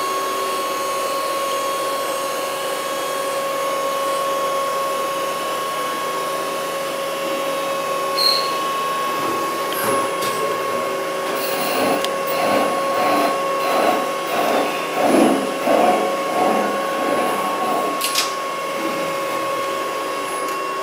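CNC lathe running, a steady machine whine of several even tones. In the second half an uneven pulsing sound, about two a second, rides over it along with a few sharp clicks.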